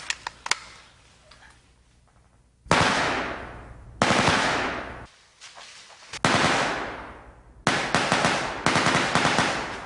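Automatic gunfire: about five bursts of rapid fire, starting about two and a half seconds in. Each begins sharply and trails off in echo, and the last two run into each other.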